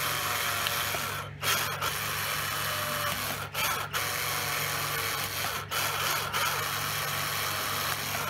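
Cordless drill running steadily as it bores a hole through a rubber gasket into an MDF disc, stopping briefly a few times.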